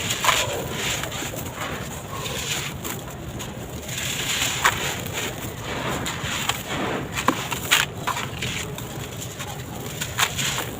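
Dry sand-cement concrete blocks crumbling and breaking up in a tub, an uneven gritty crunching with sharper snaps about halfway through, near the end and just before the end. Pigeons coo in the background.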